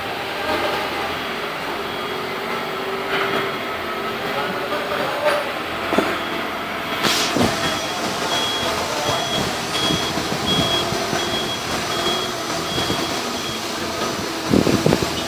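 Steady heavy-machinery noise with sharp metal clanks, and a high warning beep repeating about twice a second for several seconds in the middle.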